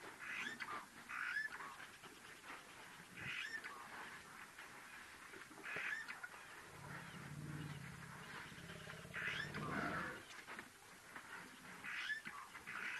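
A bird gives short honking calls every two to three seconds. Around the middle a low, pitched rumble rises and lasts about three seconds.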